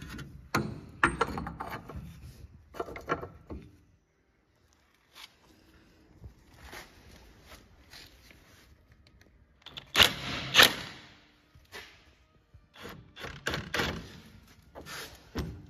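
Metal tools knocking and clanking against the crankshaft pulley and front of a Ford GPW engine while a puller is fitted to the pulley. The knocks come irregularly, the two loudest about ten seconds in and a quick run of them near the end.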